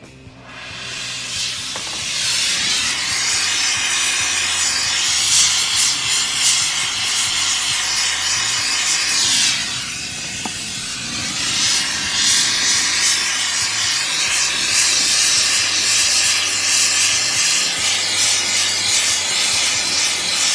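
Rosebud torch flame hissing steadily as it heats metal ingots for annealing. The hiss comes up over the first couple of seconds, dips briefly about halfway through, then holds steady again.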